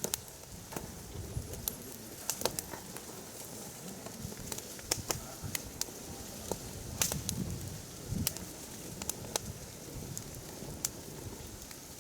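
Firewood burning in a mesh fire pit, crackling with irregular sharp pops over a low, steady rustle of flame.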